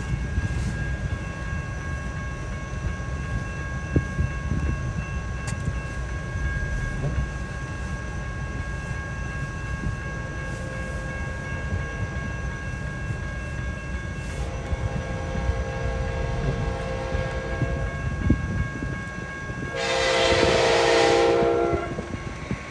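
Sounder commuter train's horn sounding for a grade crossing: a fainter horn blast about two-thirds of the way in, then a loud blast of about two seconds near the end, over a steady low rumble.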